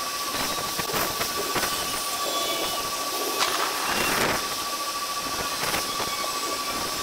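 Outdoor thunderstorm ambience sped up twenty times, its wind and weather noise squeezed into a steady hissing rush full of rapid flickering clicks, with a constant thin high tone. A brief brighter surge comes about four seconds in.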